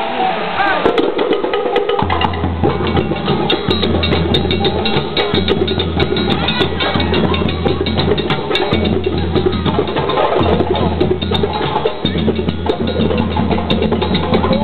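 West African djembe drum ensemble playing a fast, dense rhythm of sharp slaps, with a low bass layer coming in about two seconds in.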